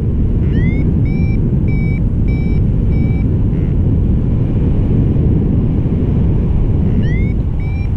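Flymaster GPS SD variometer beeping a climb tone: a rising chirp about half a second in, then short beeps about two a second that stop around three seconds; near the end another rising chirp starts a new run of beeps. The beeps signal the glider climbing in lift. Under them, heavy wind rush on the microphone is the loudest sound.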